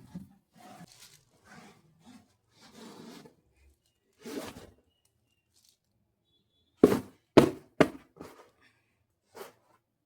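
Objects being handled: soft rustling and shuffling, then three sharp clacks about seven seconds in, each about half a second apart, with a few lighter knocks after them.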